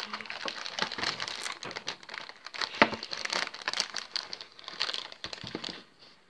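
Clear plastic packaging crinkling as it is pulled out of a cardboard puzzle box and the box is handled, a dense irregular rustle with a sharper click about three seconds in; it dies down near the end.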